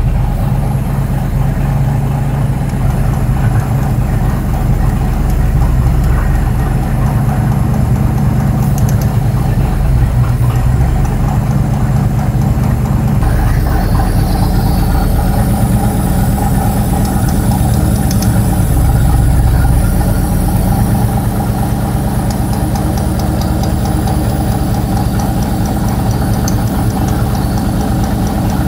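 Ford 460 cubic-inch big-block V8 idling steadily with a lopey cam, with a lifter ticking on cylinder number 4; the owner hopes it is a collapsed lifter and fears a wiped cam lobe.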